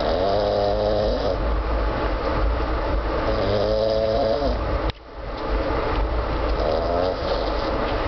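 A man snoring: three drawn-out snores about three seconds apart, each lasting about a second, over the steady low rumble of a moving train.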